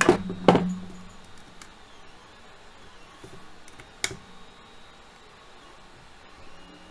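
Rifle body being turned over and set down on a workbench: two loud knocks in the first half second, each with a brief low ring. After that, faint handling and one sharp click about four seconds in.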